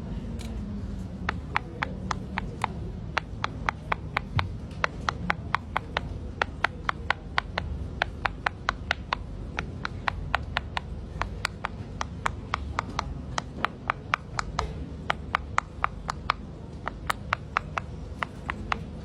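Bubbles of a silicone pop-it fidget toy being pressed one after another in quick succession, a sharp pop each time at about four a second, starting about a second in.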